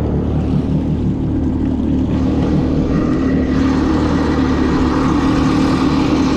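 A personal watercraft's engine runs steadily under test after repairs, with a constant engine note that grows a little brighter about halfway through. It shows no sign of trouble.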